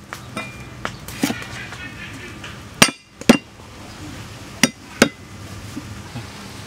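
Heavy steel cleaver chopping a root on a thick wooden chopping block: about eight sharp, irregular chops, the loudest a pair near the middle.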